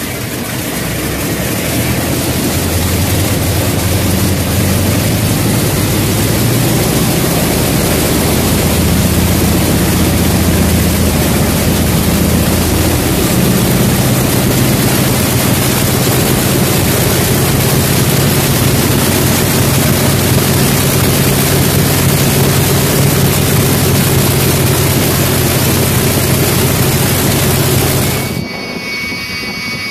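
Radial aircraft engine running with its propeller turning, loud, under a heavy rushing noise. The engine note builds over the first couple of seconds and steps up in pitch twice as the engine is opened up. It cuts off suddenly near the end.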